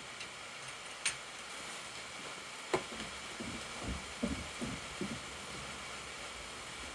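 Steady hiss of light rain, with a sharp click about a second in and another just under three seconds in, followed by a run of soft, low knocks.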